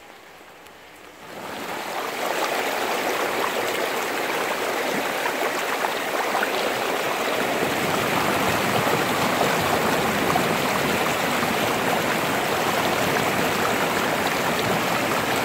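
Muddy river in flood after heavy rain, rushing fast and carrying branches: a loud, steady rush of water that begins abruptly about a second and a half in.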